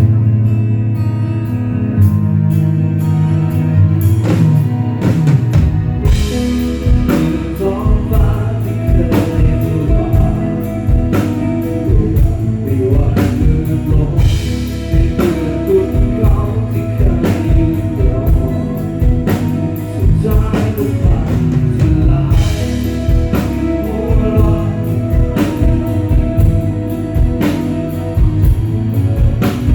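Band playing a song: bass and guitar at first, then a drum kit keeping a steady beat from about six seconds in, with a singing voice over it.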